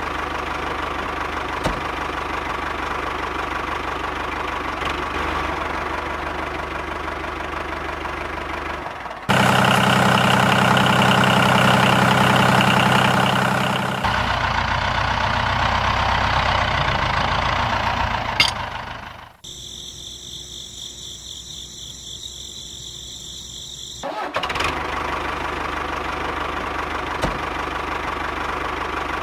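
Steady engine-like drone of a toy mini tractor, with a louder, fuller stretch about a third of the way in and a thinner, higher-toned stretch past the middle before the first drone returns.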